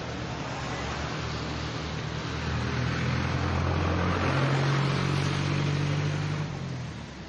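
A motor vehicle passes close by, a low engine hum over road noise that swells a couple of seconds in, is loudest around the middle, and fades near the end.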